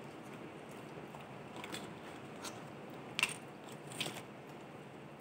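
Crunching and chewing of crispy fried chicken close to the microphone: a few short sharp crunches, the loudest about three seconds in, followed by another cluster a second later.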